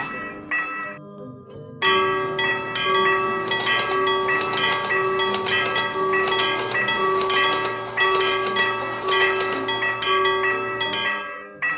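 Railroad crossing warning bells ringing in a fast, continuous clang. The ringing starts about two seconds in after a short lull and cuts off suddenly near the end.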